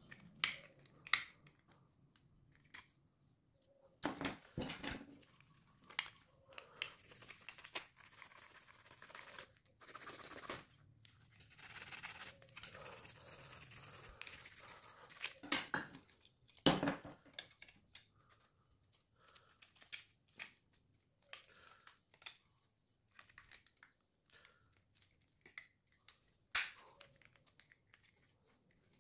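Gloved hands handling a plastic phone-charger housing and its small parts: irregular clicks and knocks, the loudest about four seconds in and again about sixteen seconds in, with a stretch of rubbing, rustling noise in the middle.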